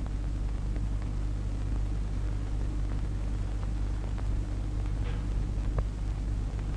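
Steady low hum and hiss of an early-1930s optical film soundtrack, with faint scattered crackles.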